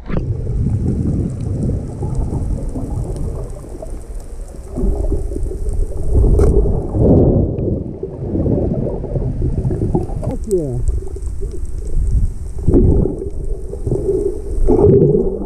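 Muffled low rumbling and swishing of water recorded underwater, surging and easing, with a couple of short falling squeaks about two-thirds of the way through.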